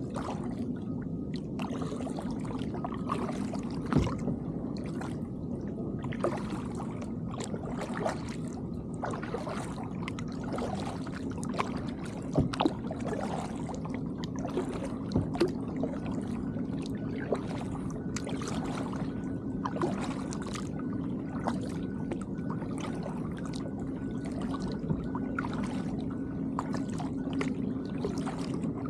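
Kayak paddling: a double-bladed paddle dipping and splashing into calm water stroke after stroke, with water dripping off the blades, over a steady low hum.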